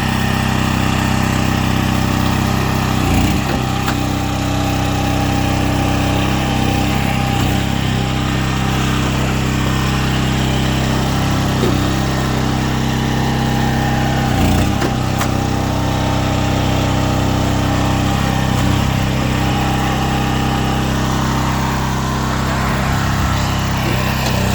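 A small engine running steadily at a constant speed, with a few brief dips in its sound.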